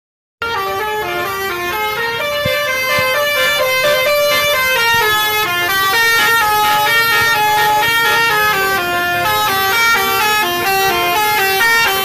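A bus's telolet horn, a multi-tone air horn, playing a quick tune. Several notes sound together and change every fraction of a second, starting about half a second in and running without a break.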